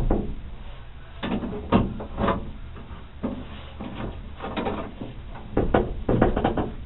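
Latch mechanism of a 1981 Ford Bronco tailgate being worked by hand: a string of short metal clicks and clunks, with a cluster of louder clatters near the end.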